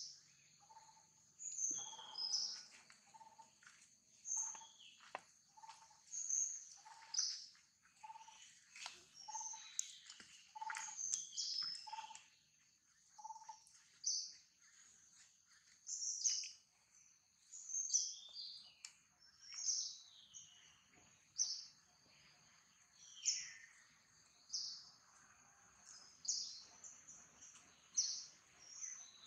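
Birds calling: short high chirps, some sliding down in pitch, repeat about once a second throughout. A lower, single-pitched note repeats a little faster than once a second through the first half, then stops.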